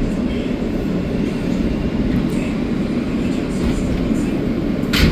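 Steady low rumble inside an R160A subway car standing at a station, with one sharp knock near the end.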